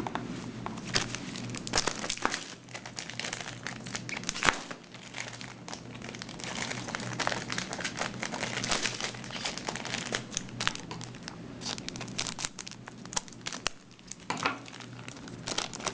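Foil trading-card booster pack wrappers crinkling and rustling as packs are handled and torn open, with one sharper snap about four and a half seconds in.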